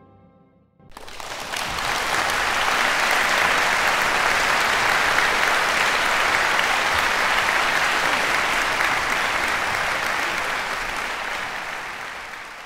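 The tail of music dies away, then an audience applauds, starting abruptly about a second in, holding steady and fading near the end.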